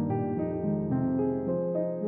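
Background piano music, with a new held note about every quarter to half second.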